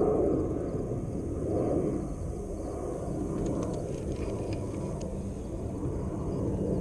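Steady low rumble under the handling of a soft-plastic stick bait and a spinning rod and reel, with a few light clicks from the fishing gear between about three and five seconds in.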